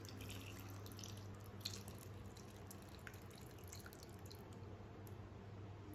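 Thin fish curry gravy poured from a plate into a bowl of fish pieces: faint splashing and dripping, with a sharper tick about a second and a half in, over a steady low hum.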